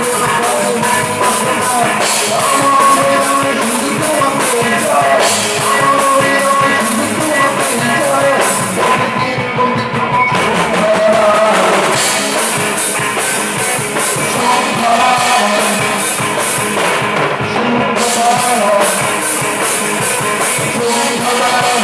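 A rock band playing live: a drum kit keeping a steady cymbal-driven beat under electric guitars, with a singing voice. The cymbals drop out for a few seconds about nine seconds in, then come back.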